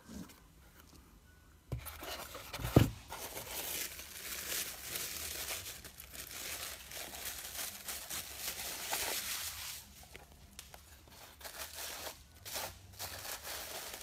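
Two knocks about two and three seconds in, the second the loudest, then the crinkling and rustling of a clear plastic bag being handled and opened around small model crane parts, going on for several seconds and coming back in short spells near the end.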